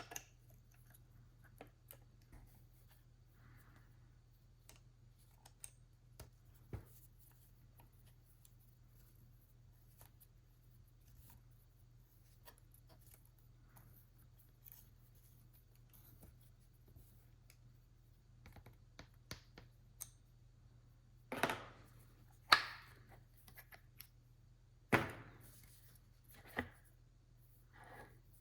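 Quiet handling sounds: small scattered clicks and taps over a faint steady hum, then several sharp, louder clicks and knocks about three-quarters of the way through.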